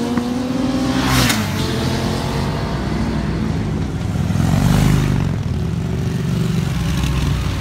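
Motorcycles riding past with their engines revving, several at once. The louder ones pass about a second in and again around five seconds.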